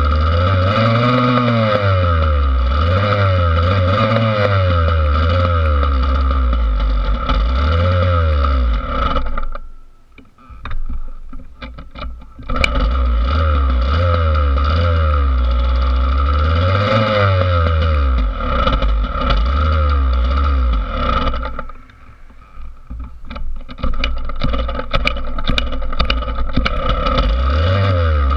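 Yamaha YZ80 two-stroke dirt bike engine running and being revved in repeated blips, its pitch rising and falling. Twice it drops away for a few seconds, leaving only scattered clicks and knocks, before the engine sound returns.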